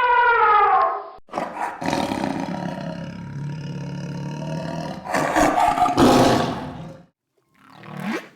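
A large animal's deep, drawn-out roar, swelling near the end before it stops. It is preceded by the tail of a different animal's pitched call, which ends about a second in, and followed near the end by a brief call rising in pitch.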